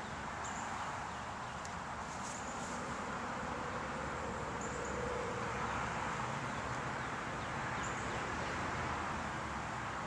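Steady outdoor summer-yard ambience, a soft even rushing noise, with a few faint, short high chirps every couple of seconds.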